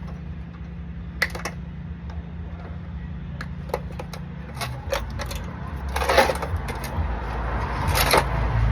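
Hand-tool work on air conditioner copper tubing: scattered sharp metallic clicks and clinks, then two louder, rasping metal sounds, one about six seconds in and one near the end.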